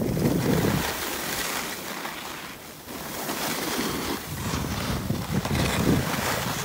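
Edges sliding and scraping over packed snow on a downhill run, mixed with wind rushing across the microphone. It is a steady rush that swells loudest in the first second and again a few seconds later.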